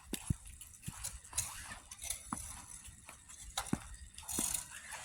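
Footsteps crunching in deep fresh snow: faint, uneven steps roughly once a second over a light hiss.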